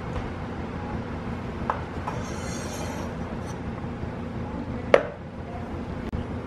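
A kitchen knife blade scraping shreds of grated cheese across a wooden cutting board, with a few light knocks and one sharp clack about five seconds in.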